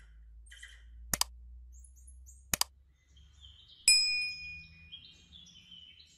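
Subscribe-overlay sound effects: two mouse clicks, about a second and two and a half seconds in, then a loud ringing bell ding near four seconds. Under them, high squeaks and then quick bird chirps play from a cat video on a TV.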